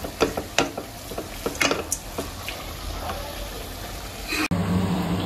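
Wooden spatula stirring and scraping flaked shark and onions frying in a steel kadai, with a soft sizzle and a few short scrapes against the pan. About four and a half seconds in, the sound cuts abruptly to a steady low hum.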